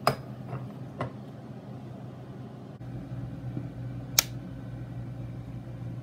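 Glass carafe of a Mr. Coffee Jr. JR4 coffee maker set down onto its warming plate with a sharp clink and two lighter knocks. A low steady hum comes in about three seconds in, then a single sharp click about four seconds in as the rocker power switch is turned on.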